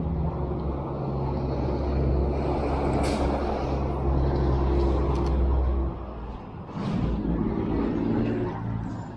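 Motor vehicle engine running close by in street traffic, a low steady hum that drops away about six seconds in, followed by a weaker engine sound. A few short sharp clicks or hisses sound over it.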